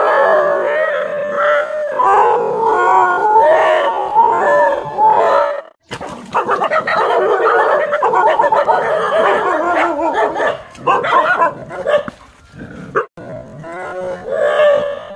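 Several dogs barking and howling almost without pause. The sound breaks off for a moment about six seconds in, and grows quieter and patchier after about twelve seconds.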